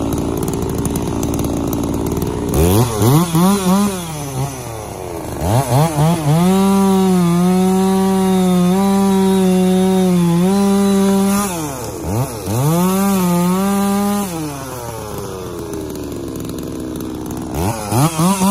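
Chainsaw bucking a log into firewood rounds: the saw is blipped a few times, then held at full throttle through the cut for about six seconds, and run up again twice more, dropping back to a lower steady running note in between.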